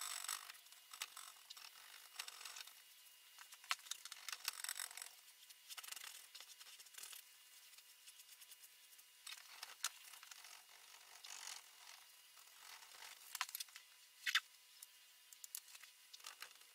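Paintbrush scrubbing oil paint onto a stretched canvas: faint, scratchy strokes in bursts, with a few sharp clicks.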